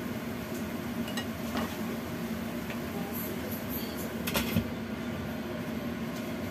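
A spatula scraping and tapping as it stirs chicken pieces in a wok, with a few light clicks, then a glass pot lid set down on the wok with a short clatter about four seconds in, the loudest sound. A steady background noise runs underneath.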